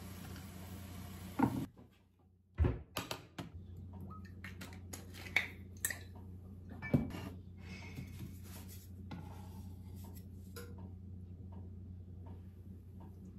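Kitchen handling sounds: a scattering of sharp clinks and knocks from pots, dishes and utensils being moved and set down, over a steady low hum.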